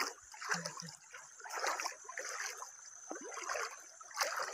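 Shallow river water running and splashing over rocks, in uneven surges.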